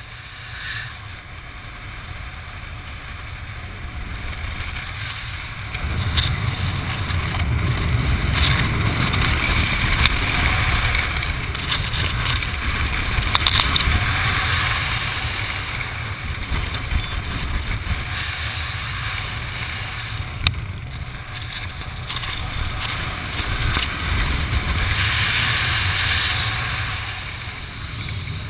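Wind rushing over the camera's microphone as a skydiver flies an open parachute. It rises sharply about six seconds in, stays strong with gusty swells, and eases off near the end.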